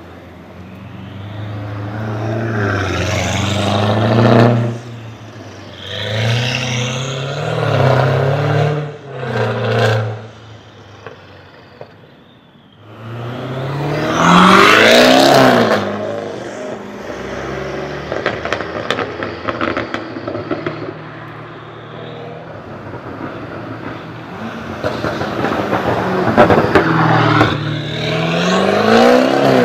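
BMW 650i Gran Coupé's twin-turbo V8 revving hard in repeated rising bursts as the car pulls away. A steadier stretch in the middle is peppered with sharp exhaust crackles.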